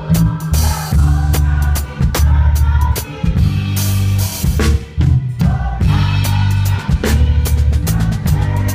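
Live gospel band playing: a drum kit's bass drum, snare and cymbal hits over a deep, held bass line.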